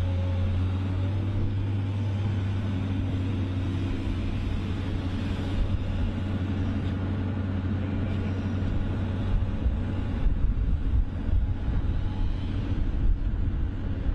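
A heavy machine's engine running steadily, turning rougher with irregular low knocks and rumble in the second half.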